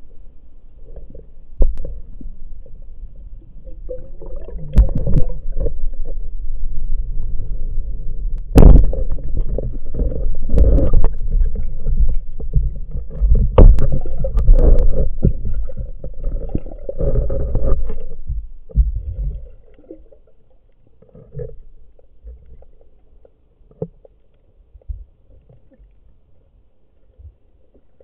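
Underwater noise picked up by a camera on a speargun: a low rushing rumble of water with scattered knocks and clicks as the diver moves and handles the gun. It is loud through the middle and falls away to faint clicks for the last several seconds.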